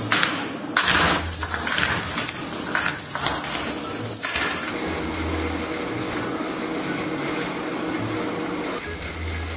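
Foley rope sound: a thick rope pulled and rubbed through gloved hands in several noisy slides, standing in for a climber's rope. About five seconds in it drops to a quieter, steady rustle of a hand brushing through a tray of tall grass.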